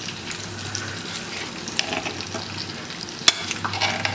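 Metal spoon stirring and turning freshly cooked chicken biryani in a pressure cooker: a soft scraping of rice, with small clinks against the pot and one sharp clink a little past three seconds in.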